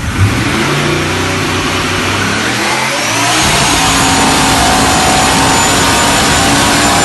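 Nissan RB30ET turbocharged straight-six engine running and being revved. About three seconds in, the pitch climbs, and the engine then holds at higher revs.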